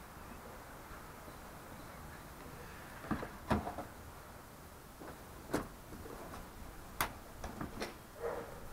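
A handful of light clicks and knocks from hands handling plastic trim panels in a car's front compartment. The first comes about three seconds in, and the rest are scattered after it.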